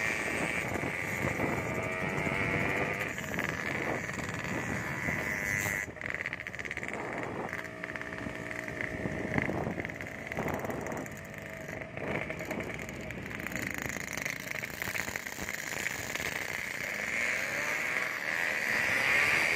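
Motorcycle engine running on the move, with a steady pitched note that shifts a little between about seven and ten seconds in.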